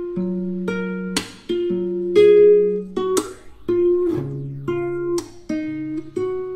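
Background music: an acoustic guitar playing plucked notes, with a sharper accented note about every two seconds.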